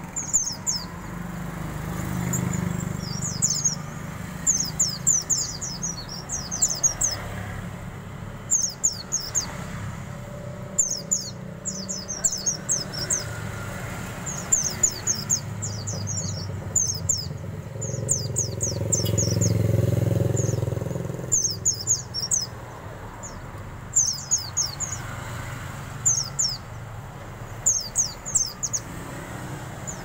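White-eye (pleci) chirping in short, rapid bursts of high, falling notes, a burst every second or two. Under it runs a low traffic rumble, and a vehicle passes by about two-thirds of the way through.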